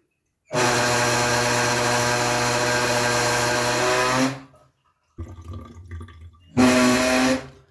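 Hot water rushing through a tap fed by a gas water heater, with a loud droning hum. The hum runs for about four seconds, stops, and comes back briefly near the end. The fault may lie in a worn tap valve cartridge.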